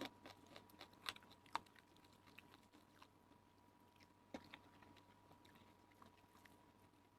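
Faint chewing and eating sounds: a few short, soft clicks in the first second and a half and two more a little past four seconds. A faint steady high tone sits underneath.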